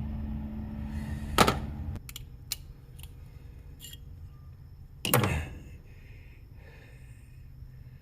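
Rusty Glock 27 pistol parts and tools being handled: a sharp knock, a few light clicks, then a heavier knock about five seconds in.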